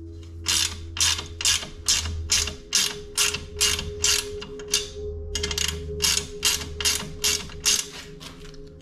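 Hand ratchet wrench clicking in steady back-and-forth strokes, about three to four a second, with a short pause about five seconds in, as a bolt is run in.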